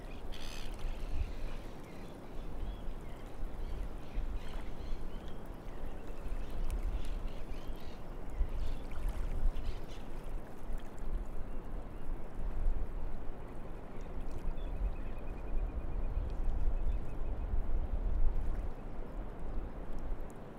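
Estuary shore ambience: a steady wash of shallow water over mud flats with a gusty low rumble, a few short bird calls in the first few seconds and a faint trill a little past the middle.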